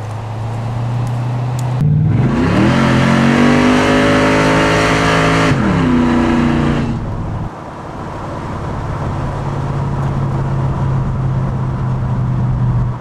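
Supercharged Chevy 350 V8 in a 1974 Mazda REPU, heard from inside the cab. It runs steadily, then about two seconds in it revs up hard under acceleration with a loud rush of noise. After a few seconds the revs fall away and it settles into a steady run that slowly builds again.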